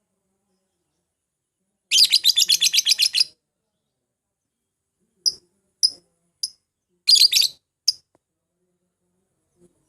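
Lovebird chirping shrilly: a rapid chatter lasting about a second and a half, then three single sharp chirps, a short second chatter and one last chirp. This is a lure call used to provoke other lovebirds into singing.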